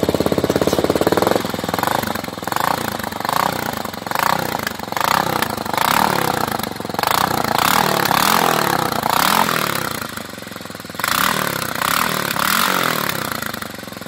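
Motorcycle engine revved repeatedly through an Akrapovič dual-outlet slip-on muffler with its silencer insert fitted, the pitch rising and falling with each throttle blip. It runs at a steady fast beat at first, and drops back briefly about two-thirds of the way through before revving again.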